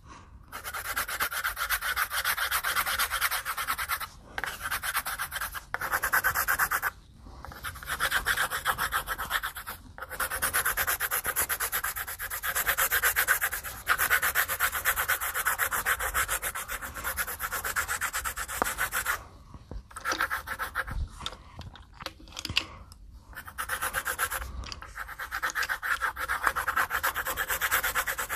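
Black colored pencil shading back and forth on paper, a fast scratchy rubbing in long runs broken by several brief pauses.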